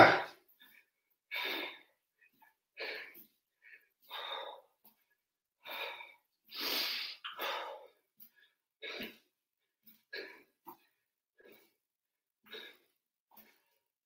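A man breathing out hard in short, separate breaths, about one a second, from the exertion of a floor core exercise (Russian twists or half sit-ups).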